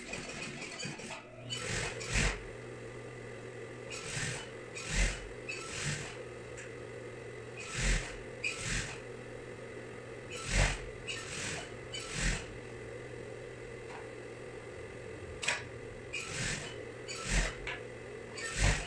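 Industrial single-needle sewing machine hemming fabric: its motor hums steadily from about a second and a half in, with sharp knocks every second or two.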